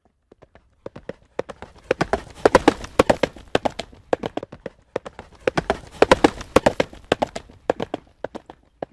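Horse galloping: a quick, uneven run of hoofbeats that starts out of silence a moment in, grows louder twice, then thins out.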